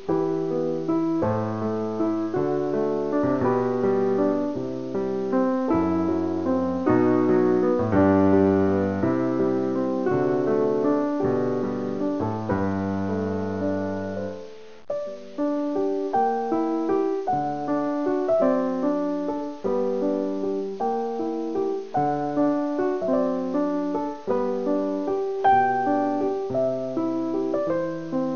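Solo piano music: chords and melody over a moving bass line, with a short break about halfway through.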